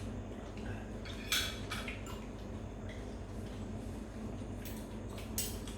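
Cutlery and dishes clinking now and then as people eat, a few short sharp knocks over a steady low hum.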